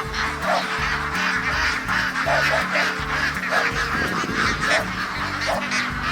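A large flock of domestic ducks quacking, many calls overlapping in a continuous din.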